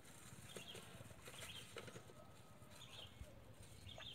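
Near silence: faint open-air ambience with a few faint, short high chirps now and then.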